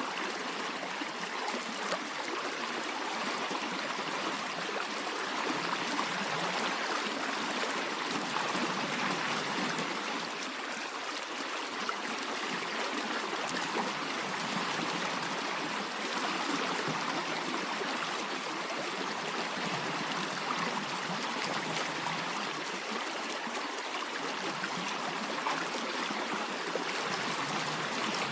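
Running water flowing steadily, a continuous stream-like rush with a fine trickling texture.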